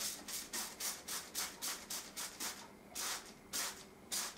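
Hand trigger spray bottle squirting Star San sanitiser, short hissing sprays in quick succession, about four or five a second, then three slower, stronger sprays near the end.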